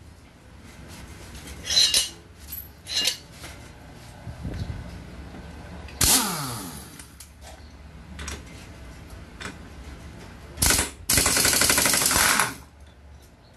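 Power impact wrench with a 17 mm socket working the drive pulley nut of a Yamaha NMAX 155 to loosen it. A few short bursts come first; the one about six seconds in winds down in pitch. Near the end comes a longer burst of rapid hammering.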